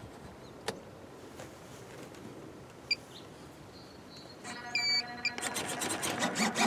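A few faint clicks, then a short electronic beep about four and a half seconds in, followed by a small electric motor whirring in quick, stuttering spurts.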